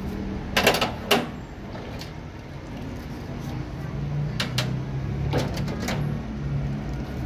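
A few short, scratchy brushing and splashing sounds as a rusty pistol part is scrubbed with a wet toothbrush and rinsed in a tray of soapy water: two sharp strokes near the start and four more between about four and six seconds in, over a low steady background hum.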